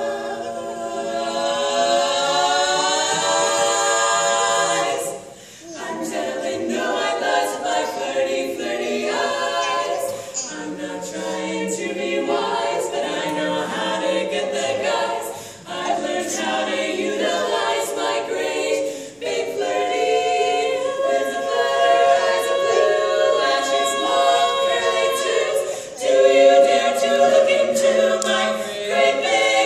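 Female vocal quartet singing a cappella in harmony. A long chord is held for about the first five seconds, and after a brief break the singing moves on note by note.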